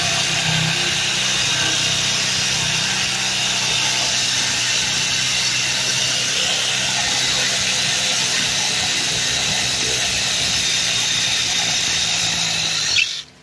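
Power drill running steadily, driving a tight-fitting socket to back out a stripped lag screw; it stops suddenly near the end.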